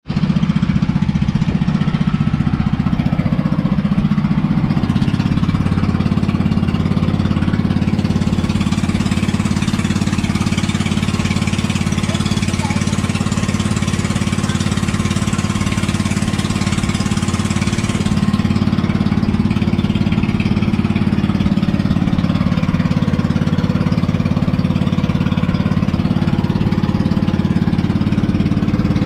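Inboard engine of a bangka outrigger boat running steadily under way, heard from on board, starting abruptly at the outset.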